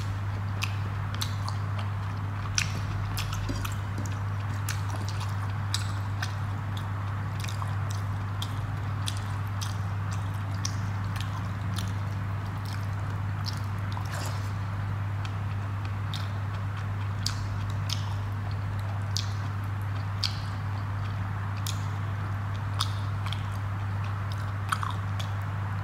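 A person eating rice and fish curry by hand: chewing with short wet clicks and smacks, scattered irregularly, over a steady low hum.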